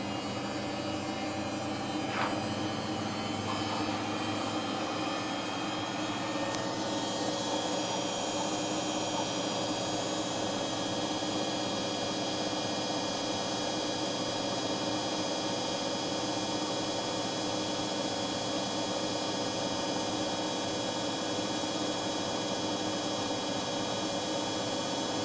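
Samsung front-loading washing machine on its spin cycle: a steady motor hum and drum whine. A higher whine comes in about six seconds in and then holds.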